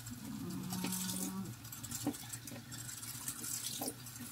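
Kitchen tap running a thin stream into a stainless steel sink: a faint, steady splashing hiss.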